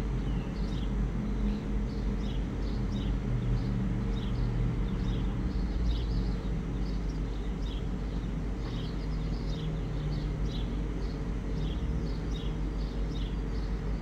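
A spoon mashing boiled mung beans in a pot, with short, high, irregular ticks a few times a second, over a steady low hum.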